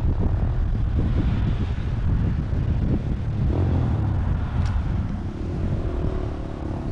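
Wind buffeting the microphone: a loud, choppy low rumble with a hiss over it.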